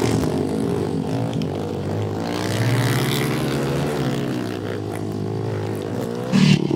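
Pit bike engine revving hard while being ridden, its pitch rising and falling with the throttle.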